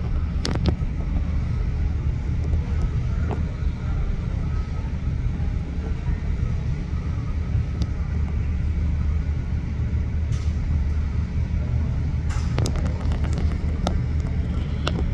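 Boeing 777's twin jet engines heard from the ground as the airliner climbs away after takeoff: a steady low rumble.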